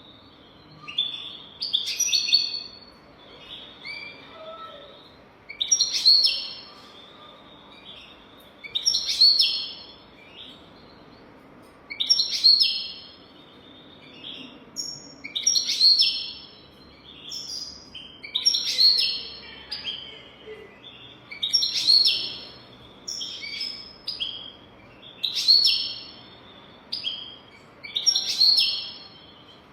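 European goldfinch singing: a bright twittering phrase of quick rising and falling notes, repeated about every three seconds, nine times.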